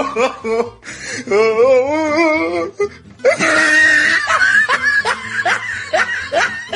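Laughter over music on an added soundtrack: a wavering, sing-song laugh, then a string of short rising laughs, a few a second.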